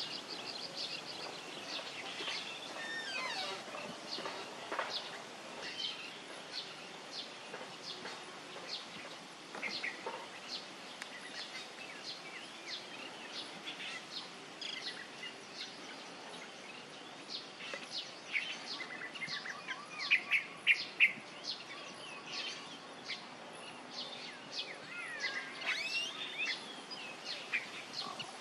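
Small birds chirping and calling over a steady outdoor background hiss. There is a quick trill at the start and a louder run of chirps about twenty seconds in.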